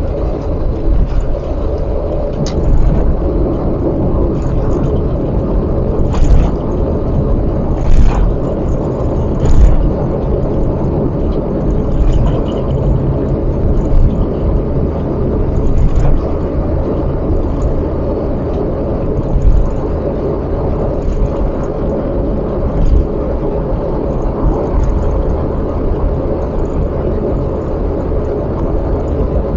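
Steady low road and engine rumble inside a moving car, with a few short sharp knocks about six, eight, nine and a half and sixteen seconds in.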